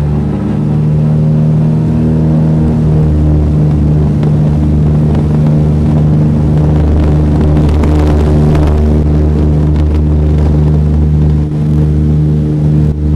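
Douglas DC-3's radial piston engines at takeoff power, heard from inside the cabin beside the engine during the takeoff roll: a loud, steady drone, with a brief swell of rushing noise about halfway through.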